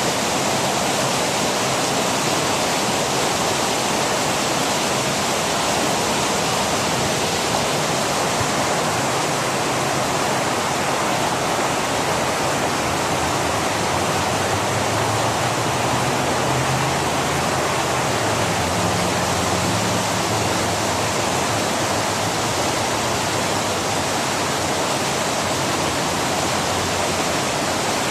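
Heavy falling water from a waterfall-style large fountain, a steady unbroken rush of splashing.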